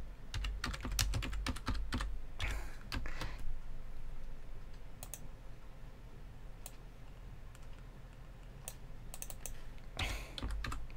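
Computer keyboard being typed on, with quick runs of key clicks in the first few seconds, then only scattered single clicks, and another flurry near the end, over a low steady hum.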